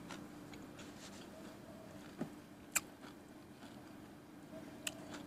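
A person chewing food, with three short sharp mouth clicks about two, three and five seconds in, over a faint steady hum.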